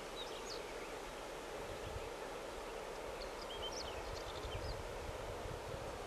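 Small birds chirping in short runs of calls, once just after the start and again from about three to five seconds in, over a steady faint outdoor hum with a few low rumbles.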